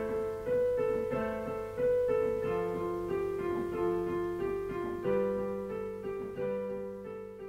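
Solo piano music: slow chords struck every second or so, each ringing out and dying away.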